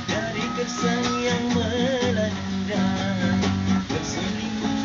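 A man singing to an acoustic guitar, the guitar strummed under a wavering sung melody.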